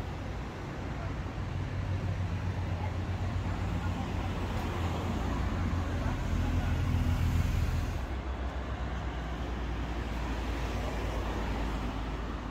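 Road vehicle engine running close by in street traffic: a low hum that builds over several seconds and drops away about eight seconds in, over general street noise.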